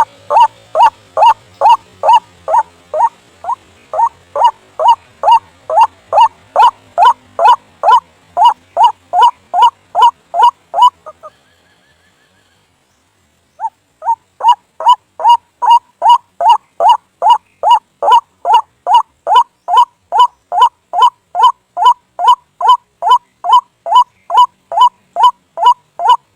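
White-breasted waterhen (ruak-ruak) calling: a loud, monotonous run of short rising notes, about two and a half a second. The calling breaks off for about two seconds partway through, then starts again at the same pace.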